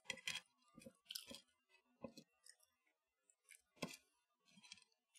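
Faint, scattered crackles and clicks of crispy breadcrumb-coated, air-fried cheese-filled chicken kiev balls being handled with the fingers on a plate. The sharpest come near the start and just before four seconds in.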